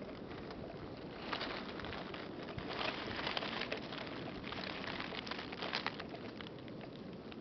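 Dry leaf litter and leaves rustling and crackling in gusty wind, with scattered small clicks and three louder swells of rustling.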